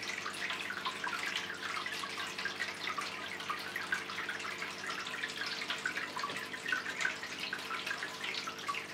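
Water trickling and splashing down the tiers of a five-tier tabletop fountain in a steady patter of many small drips, with a faint steady hum underneath.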